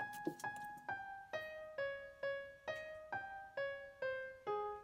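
Background music: a piano-like keyboard playing a simple melody of single decaying notes, about two a second.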